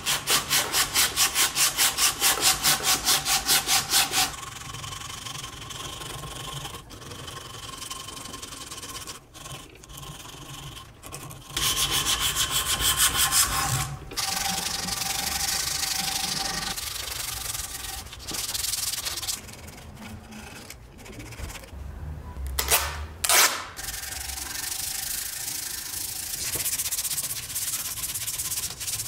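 Sandpaper rubbed by hand over a carved wooden axe handle: quick back-and-forth strokes at about six a second for the first few seconds, then slower, steadier rubbing broken by short pauses, with another fast run near the middle. Two short, louder strokes come a little past two-thirds of the way through.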